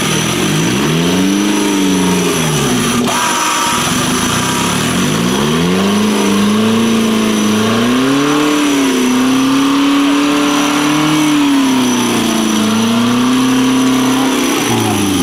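Off-road 4x4's engine revving up and down in short swells, then held at a higher, wavering pitch for several seconds under load.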